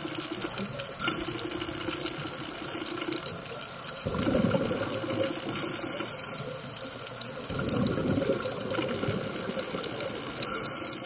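Underwater ambience recorded with the footage: a steady watery wash with fine crackling, swelling louder twice, about four seconds in and again about eight seconds in.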